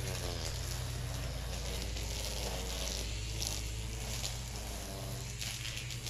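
String trimmer (weed eater) engine running steadily at low speed: a low hum with slowly wavering overtones, under a light hiss with brief rustles.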